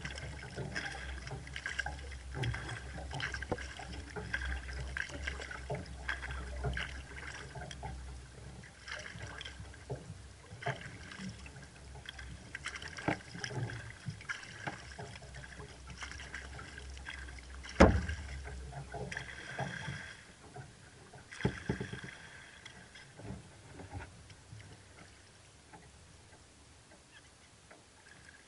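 Sea kayak being paddled: paddle blades dipping and splashing, water dripping and trickling, with an occasional sharp knock, two of them louder later on. In the last few seconds the splashing thins out and it goes quieter.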